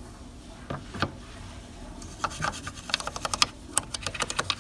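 Hands working on a small die-cast model car: a rapid, irregular run of sharp clicks and taps from small hard parts, with some rubbing, after two single clicks near the start.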